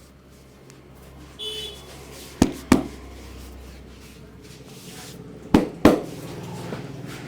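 Sharp slaps of hands striking during a head massage, coming in two quick pairs about three seconds apart, over a low steady hum.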